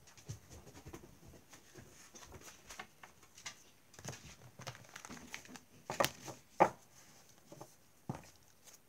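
A deck of oracle cards being gathered off a cloth and shuffled by hand: soft rustling and quick card-on-card clicks, with two sharper snaps about six seconds in.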